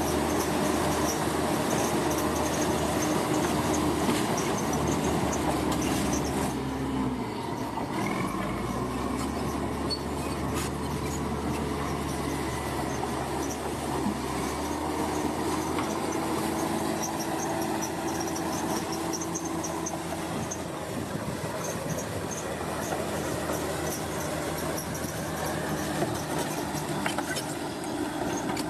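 Heavy diesel earthmoving machinery working continuously, its engine note dropping and changing about seven seconds in, with high metallic squealing over it.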